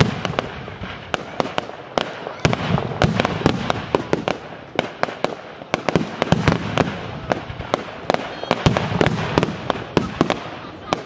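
Aerial fireworks display: shells bursting in rapid sharp bangs and crackles, several a second, over a low rolling rumble that swells and eases every few seconds.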